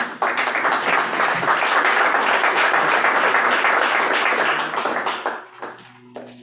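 Audience applauding, a dense burst of clapping that starts at once and dies away after about five seconds into a few scattered claps.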